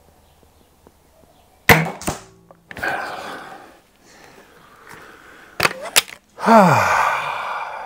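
Weihrauch HW99S .22 spring-piston break-barrel air rifle fires a single sharp shot about two seconds in, with a second knock just after. Then a scraping noise as the barrel is broken open to cock the spring, and two sharp clicks as a pellet is loaded. Near the end comes a drawn-out vocal sound falling in pitch.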